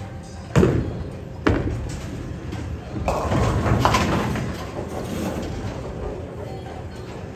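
Two heavy thuds about a second apart, typical of bowling balls landing on the wooden lane, then about three seconds in a loud clatter of bowling pins being struck that dies away over the next couple of seconds.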